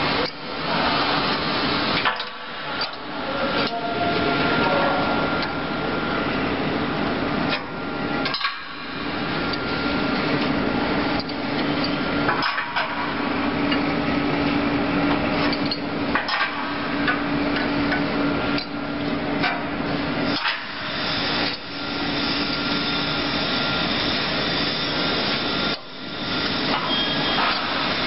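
Metal knocking and clanking as parts of a chain link fence machine are handled and fitted, over a steady hum of running machinery.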